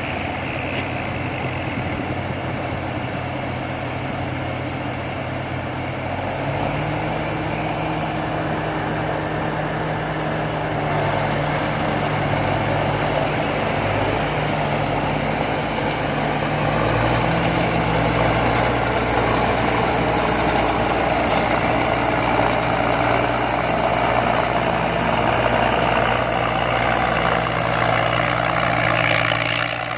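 Combine harvester's diesel engine running steadily, its pitch stepping up about six seconds in and again a few seconds past the midpoint, getting somewhat louder as it revs.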